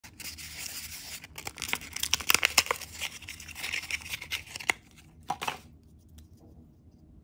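Small printed wrapper on a toy blind package being torn and peeled off by hand: a run of crackly tearing and crinkling with sharp snaps, loudest about two to three seconds in. It stops about five and a half seconds in.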